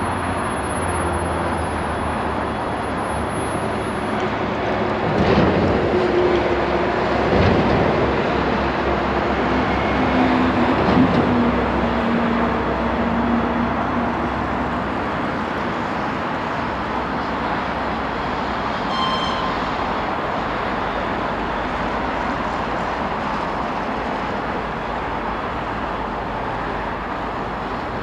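ER2T electric multiple unit approaching on curved track: a steady rumble, with a few knocks about five, seven and eleven seconds in.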